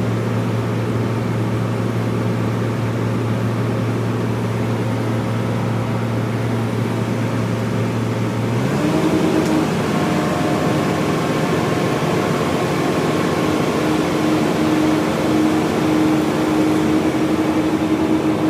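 Bulldozer's diesel engine running steadily at low revs, then revving up about halfway through and holding at a higher, slightly louder pitch.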